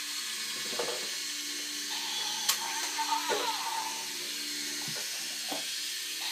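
Electronic sound effects from a Kamen Rider Wizard toy transformation belt and gauntlet, playing through a small, hissy toy speaker as a steady drone of held tones, with a sharp click about two and a half seconds in.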